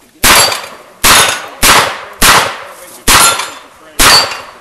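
A revolver firing six shots in quick succession, the shots roughly two-thirds of a second to a second apart. Each shot is a sharp, loud report that trails off before the next.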